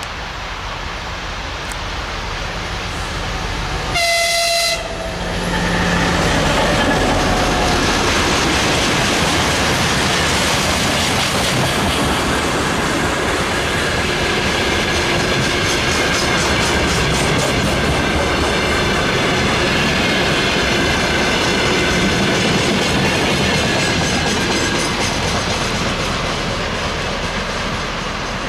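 M62 diesel locomotive gives one short horn blast about four seconds in. Its two-stroke diesel then passes loudly, and a long train of tank wagons rolls by with a steady clickety-clack of wheels over rail joints, fading near the end.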